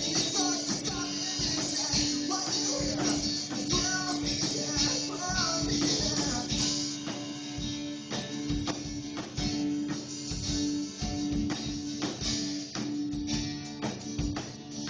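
Music: a song performed with a singing voice over strummed guitar and tambourine, the voice mostly in the first half.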